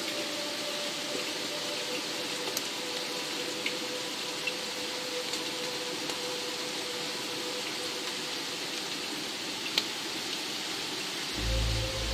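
Steady rain falling, with a few sharp drips. A faint held note of ambient music sits under it, and a deep bass note of the music comes in near the end.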